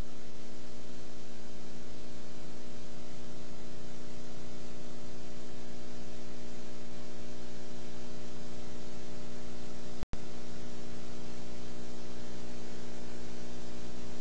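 Steady electrical mains hum with a buzzy stack of overtones under a constant hiss, from an old analog videotape recording. The sound cuts out for an instant about ten seconds in.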